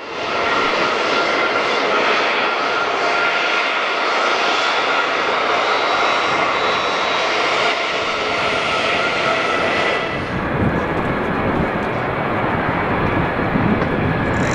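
Embraer KC-390's twin turbofan engines running on its landing rollout: a loud, steady roar with a thin high whine running through it. About ten seconds in the sound changes to a deeper rumble.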